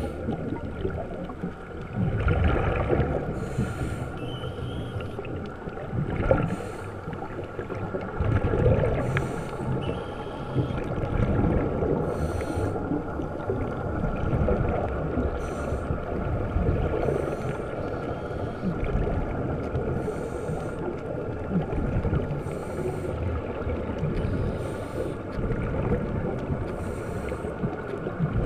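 Underwater sound of a scuba diver's regulator breathing: short hisses every two to three seconds with bubbling rumble between, over a steady low rumble of water.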